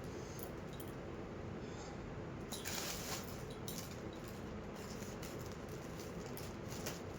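Plastic courier packaging rustling and crinkling as a parcel is opened by hand, with scattered crackles over a steady background noise.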